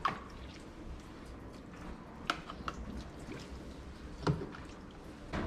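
Soapy water sloshing and dripping in a small plastic tub as a hand scoops in it with a cup, with a few short sharp clicks about two, two and a half and four seconds in.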